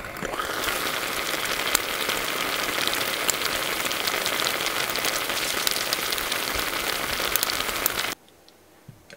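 Pan of Manila clams and cherry tomatoes steaming in broth, giving a steady sizzling hiss with many small crackles. It cuts off suddenly about eight seconds in.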